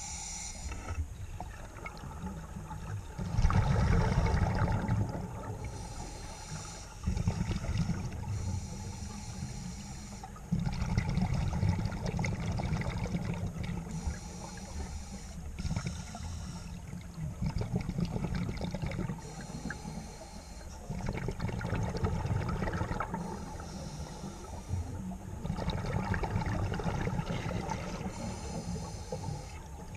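Scuba breathing through a regulator, recorded underwater through a camera housing. A short hissing draw alternates with a rumble of exhaled bubbles, repeating about every four to five seconds.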